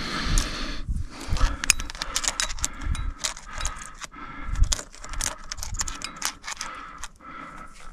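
Metal climbing gear on a climber's harness, carabiners and cams, clinking and jangling in many short, irregular clinks as the climber moves, with a few low thumps.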